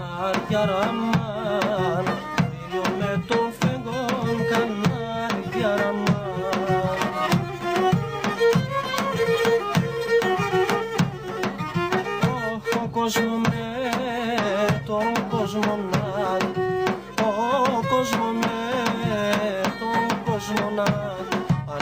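Instrumental Pontic Greek folk music: a bowed string melody, in the manner of the Pontic lyra (kemenche), over a steady drum beat.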